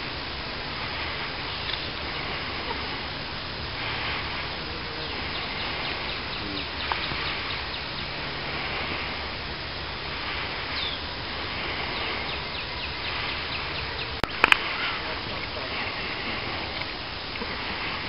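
Outdoor ambience with birds calling now and then over a steady background noise. A few sharp clicks about fourteen seconds in are the loudest sound.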